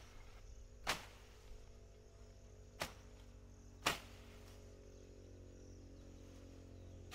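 Three sharp strikes of a hand farming tool in the soil, a second or two apart, with a couple of fainter knocks between them.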